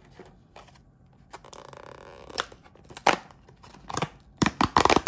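Plastic snack packaging being opened: a short tearing rustle about a second and a half in, then a series of sharp crinkles and crackles that grow denser and loudest near the end.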